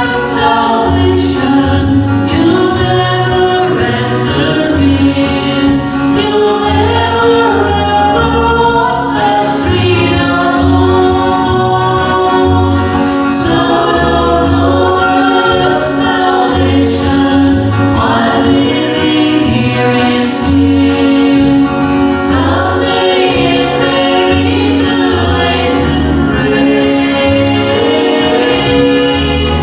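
A gospel singing group singing a hymn-like song in several voices over a steady, rhythmic bass accompaniment.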